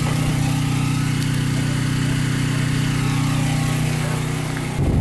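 Steady low machine hum, like a motor running, that cuts off abruptly near the end.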